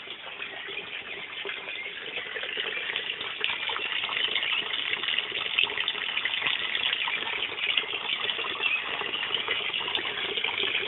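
A steady stream of water splashing into a tank of water: the outflow of a submersible pump running through a homemade bottle filter. It grows louder over the first few seconds, then holds steady.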